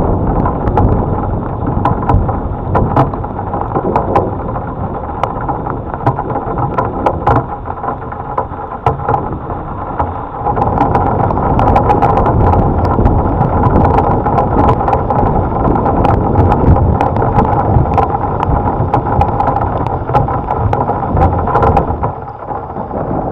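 Strong thunderstorm wind buffeting the microphone in a continuous rumble, with many sharp ticks scattered through it.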